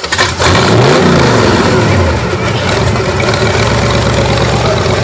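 Rock-bouncer buggy engine revved hard under load while climbing a rock ledge. The pitch climbs and falls back about a second in, then holds at high revs.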